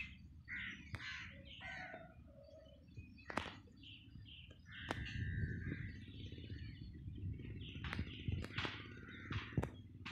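Crows cawing again and again, with a few higher bird chirps, over a low rumble and a few sharp clicks.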